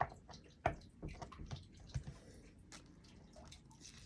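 Tarot cards being handled: soft, irregular clicks and taps, several a second, with a few sharper ones.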